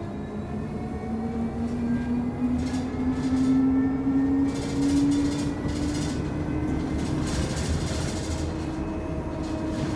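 Electric train running, heard from inside the car over a steady low rumble. Its motor whine rises smoothly in pitch over the first several seconds as it speeds up, then holds level.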